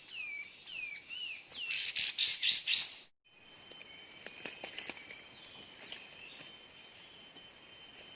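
A songbird calling in a quick run of loud, bending whistled notes that crowd closer together towards the end. About three seconds in it cuts off suddenly to a quieter forest background with a steady high insect drone and scattered small clicks.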